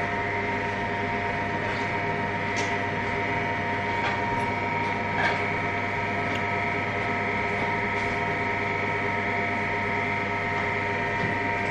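Laser hair-removal machine running, giving a steady electrical hum made of several steady tones, with a few faint clicks scattered through it.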